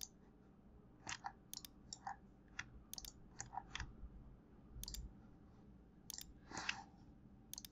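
Faint computer mouse clicks: a quick pair of sharp clicks every second or so, with softer clicks in between, as control points are picked one at a time.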